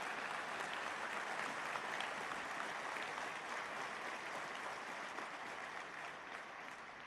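Audience applauding, a dense steady clapping that slowly fades away over the last couple of seconds.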